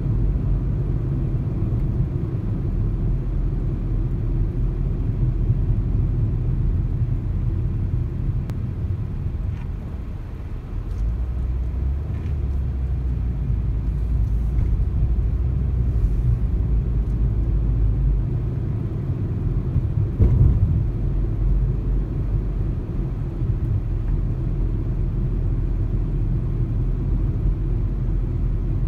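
Car driving along a road: a steady low rumble of tyres and engine. The deepest part of the rumble swells for several seconds near the middle, and there is a brief bump about twenty seconds in.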